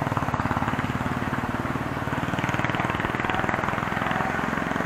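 Motor scooter engine idling, a steady rapid even pulse.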